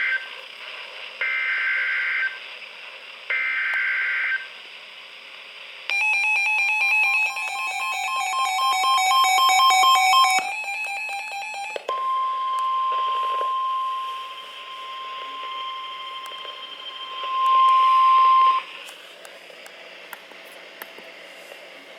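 Emergency Alert System tones: the end of one burst and two more one-second bursts of the screeching digital SAME header data, then a pulsing multi-tone alert for about six seconds. A single steady warning tone follows for about six and a half seconds, growing louder just before it cuts off.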